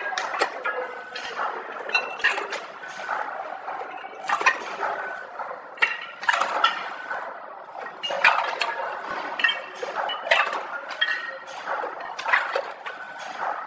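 Automatic candy packing machine running: its sealing jaws and mechanism clack and clink in a repeating cycle, with a heavier clack about every two seconds and lighter metallic clicks between.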